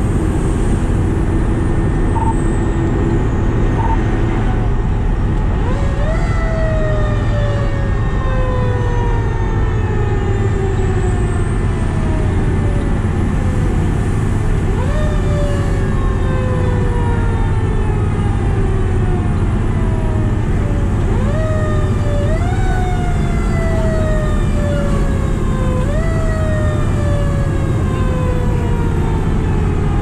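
Steady engine and road noise inside the cab of a 2003 Pierce Dash fire truck under way. From about six seconds in, the truck's siren repeatedly winds up quickly and then falls away slowly in pitch.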